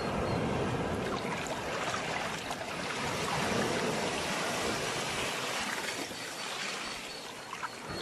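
Sea waves washing on a shore, a steady rushing wash that swells and eases, dropping back briefly near the end.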